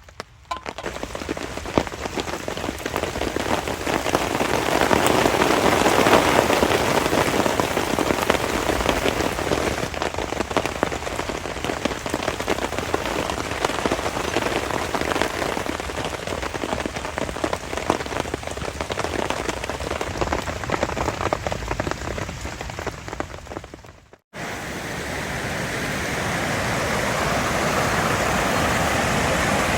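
Heavy rain falling steadily in a dense patter of drops, building over the first few seconds. About 24 seconds in it cuts out for a moment and a smoother, steady rushing sound follows.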